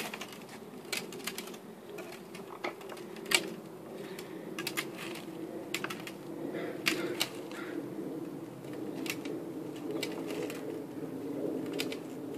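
Irregular light clicks and knocks from a child's plastic tricycle as it is shuffled about on a concrete patio, a few of them sharper than the rest.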